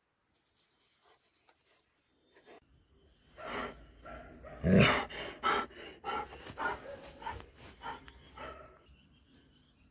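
Doberman vocalizing in a run of short, uneven sounds, starting about three seconds in and loudest about five seconds in.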